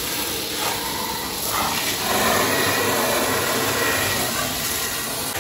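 Pressure-washer jet spraying water onto a car's body, a steady hiss of spray blasting caked mud off, getting louder about two seconds in.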